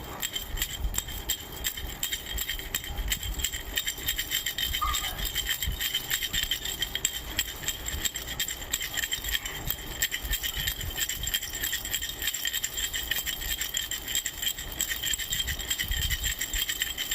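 A baby's bracelet rattle shaken steadily, a fast continuous clatter of small rattling and jingling pieces with a bright ringing over it.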